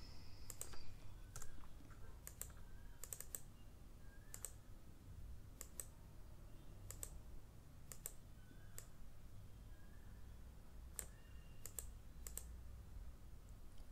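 Faint, scattered clicks of computer keyboard keys, single taps and quick little clusters at irregular intervals.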